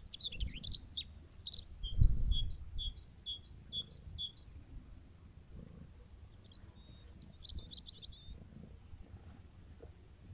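A songbird singing: a twittering phrase that runs into a string of high notes alternating between two pitches, about four a second, then a shorter twittering phrase about seven seconds in. A low rumble lies underneath, with a dull thump about two seconds in.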